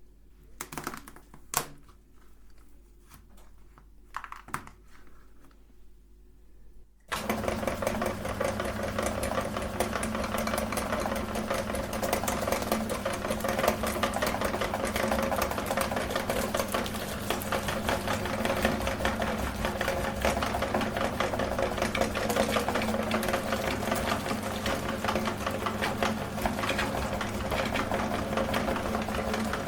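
A few light knocks, then an electric meat grinder switches on with a sudden start about seven seconds in and runs steadily, its motor hum carrying a fine, even rattle.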